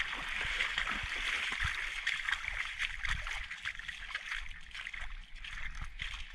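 Footsteps wading and splashing through shallow tide-pool water, then crunching over shells and stones, with a steady watery hiss and many small irregular clicks that thin out after about three seconds.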